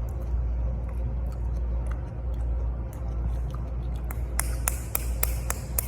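Close-miked chewing of food, with crisp crunching clicks coming regularly about four times a second from about four seconds in.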